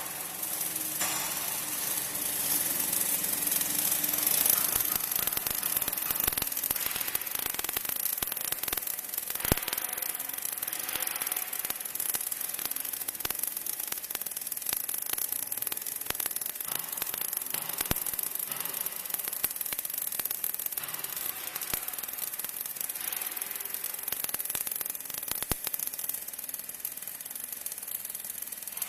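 Welding arc of an automatic overlay surfacing welding machine crackling steadily as it lays down weld metal, with scattered sharp pops, the loudest about nine and a half seconds in.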